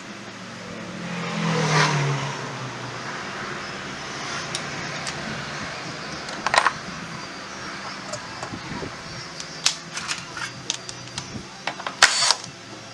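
A motor vehicle engine swells and falls in pitch about a second in, then fades. Scattered sharp metallic clicks and knocks from hand-tool work on the scooter follow, the loudest about six and a half and twelve seconds in.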